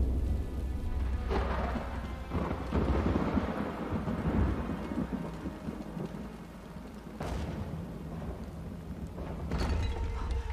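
Thunderstorm: steady heavy rain over a low rumble, broken by several sharp thunder cracks.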